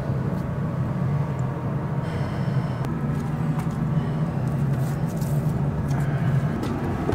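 A running motor's steady low hum.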